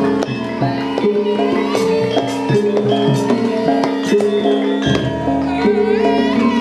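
Javanese gamelan music: struck bronze metallophone notes repeating in a steady rhythm over drums, with a wavering higher melody line coming in near the end.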